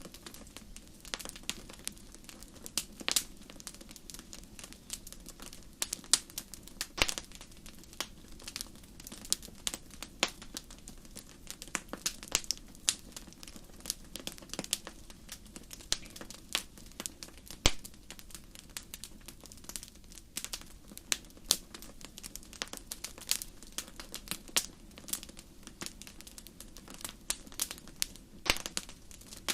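Wood fire crackling and popping: irregular sharp snaps, several a second, with a few louder pops, over a soft steady hiss.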